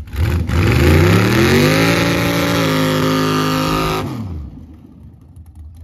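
Pickup truck engine revved hard while spinning its rear tyres on dirt. The pitch climbs for about two seconds, holds at high revs, then drops away about four seconds in.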